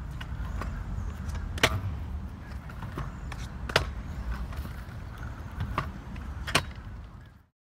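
Steady low rumble with a handful of sharp knocks spread through it, the loudest four about two seconds apart. It cuts off abruptly near the end.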